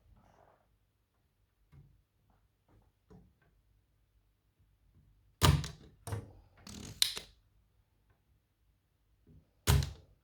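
Sharp mechanical knocks and clicks from hand tools while solder is cleared from a hole in the circuit board: a quick group of four about halfway through and one more near the end, with faint small ticks before them.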